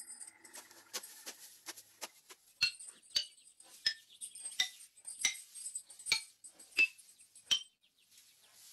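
A quiet series of light, ringing metallic clinks, each at a slightly different pitch, coming roughly every two-thirds of a second and growing clearer from a few seconds in.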